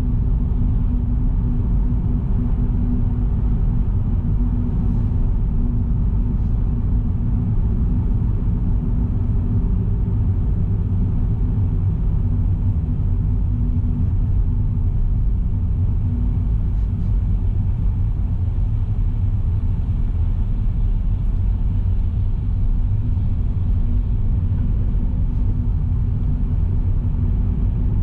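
Car driving at a steady speed: an even, continuous low rumble of tyre, road and engine noise with a faint steady hum in it.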